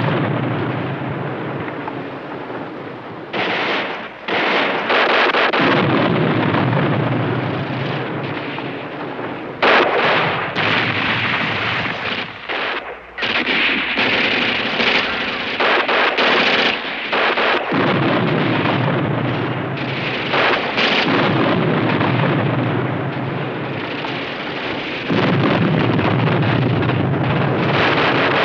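Dense battle sound effects: gunfire, including machine-gun fire, with explosions, loud and almost continuous, breaking off and resuming abruptly several times.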